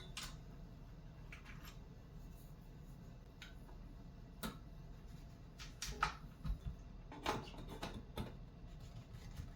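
Scattered light clicks and knocks of metal and plastic drum-rack parts being handled and fitted together, with a small cluster of sharper knocks a little past the middle.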